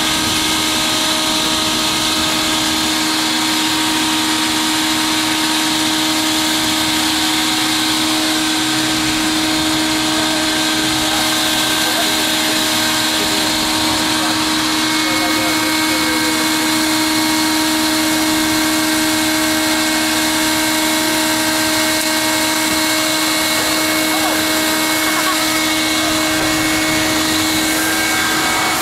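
Electric air blower running steadily with an even hum and rush of air, inflating a clear plastic water-walking ball.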